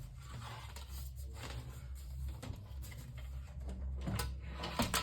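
Handling noise: a low rumble from a hand-held camera being moved close, with light knocks and rattles from a plastic box fan being handled and turned, the sharpest near the end.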